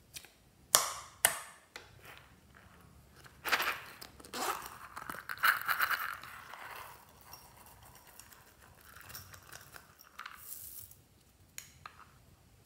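Hands opening a small plastic unicorn-shaped pouch and tipping tiny plastic beads out of it onto slime: two sharp clicks, then bursts of rustling and rattling handling noise.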